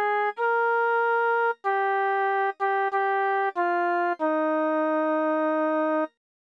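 MIDI rendering of a hymn's men's voice part: a single melody line of steady, evenly held synthesized notes with short gaps between them. It ends on a long held note that cuts off about six seconds in.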